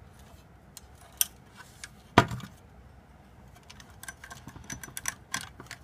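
Small clicks and light rattles of metal and plastic parts being handled, with one sharp knock about two seconds in and a quick run of small clicks near the end.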